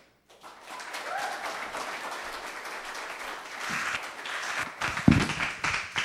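Congregation applauding, starting about half a second in, with a low thump about five seconds in.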